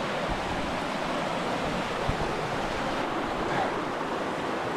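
Steady rushing of running river water.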